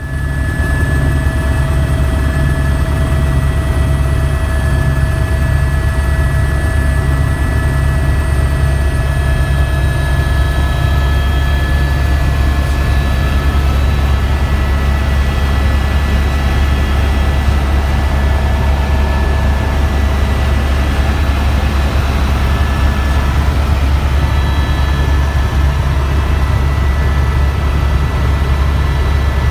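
Helicopter cabin noise in flight: a steady low drone from the rotor and engine with steady high whining tones over it.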